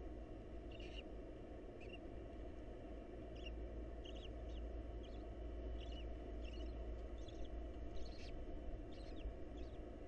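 Barn owls in the nest box giving short, high squeaks, about a dozen at irregular intervals, roughly one a second, over a steady low hum.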